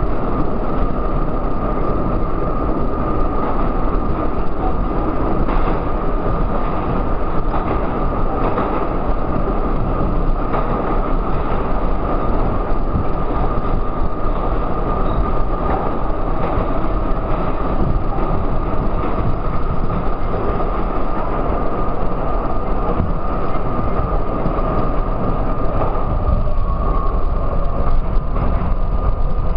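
R32 subway car running through a tunnel, heard from inside the car: a steady loud rumble of wheels on rail with a steady high whine and an occasional faint clack. Near the end the whine fades and the sound eases as the train slows into a station.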